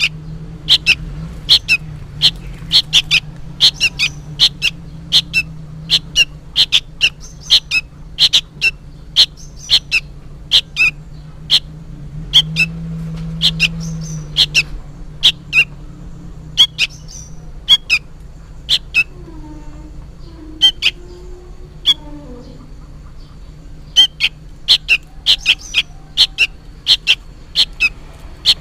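Young sooty-headed bulbul giving short, sharp calls over and over in quick bouts, about two a second, with a sparser spell in the middle. This is the noisy calling of a fledgling, which the uploader takes for calling its parent.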